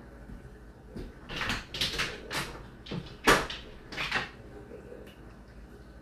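Whirlpool WFO3P33DLXUK dishwasher in its final rinse: a run of six or seven short splashing swishes of water inside the tub over about three seconds, the loudest about three seconds in, over a faint steady hum.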